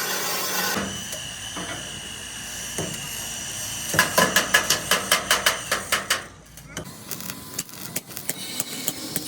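A fast run of hammer blows on metal, about five a second for two seconds, followed after a short pause by lighter, quicker tapping.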